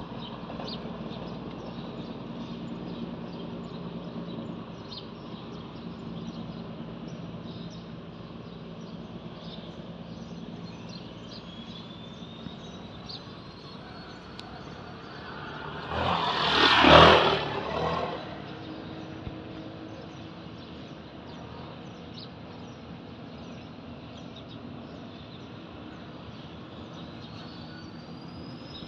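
Outdoor ambience: a steady background hiss with small high chirps and two slow rising whistles. About halfway through, a loud rushing sound swells and fades over roughly two seconds.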